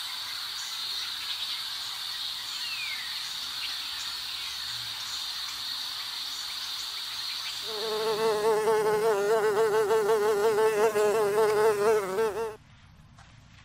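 A steady high-pitched insect whine with a short falling bird chirp, then about halfway through a honeybee buzzing loudly close by, its pitch wavering up and down as it hovers, cutting off abruptly near the end.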